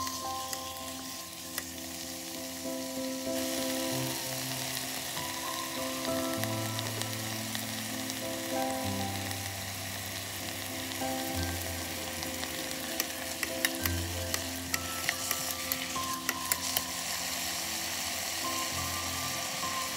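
Beef brisket, onion and scallions sizzling as they sauté in a Philips multicooker's inner pot, stirred with a plastic rice paddle, with clicks of the paddle against the pot in the second half. Soft background music plays underneath.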